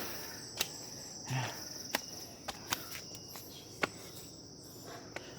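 Steady high-pitched chirring of insects such as crickets, with a few scattered sharp clicks.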